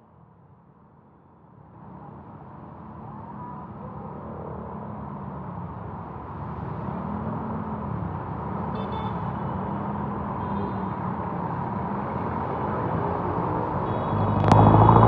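A motor vehicle's engine driving through knee-deep flood water, growing steadily louder as it approaches. Near the end a much louder close sound starts suddenly.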